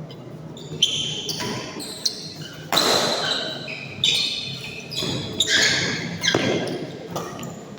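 Badminton rally: rackets striking a shuttlecock back and forth, about eight sharp hits at uneven spacing of roughly half a second to a second, each with a short ringing tail.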